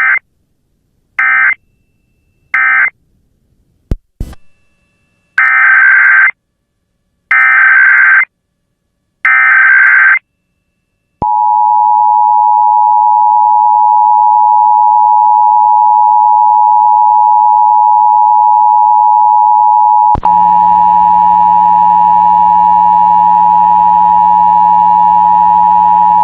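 Emergency Alert System tones: three short screechy SAME data bursts (the end-of-message code), a click, then three longer SAME header bursts opening the next alert. Then the EAS two-tone attention signal (853 and 960 Hz together) comes on and holds steady, with a low hum and background noise joining beneath it partway through.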